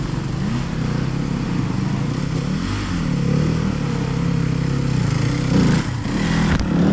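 Enduro dirt bike engines running near idle, their pitch wavering up and down, with a couple of short throttle blips in the second half.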